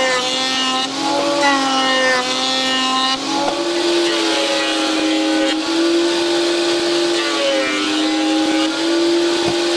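Combination jointer/thickness planer running with a steady motor whine. Its pitch sags each time a board is cut and rises again when the cutter runs free, with a short knock near the end.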